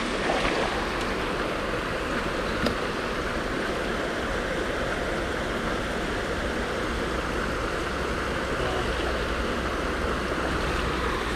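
Water of a small stream running steadily, an even rushing noise.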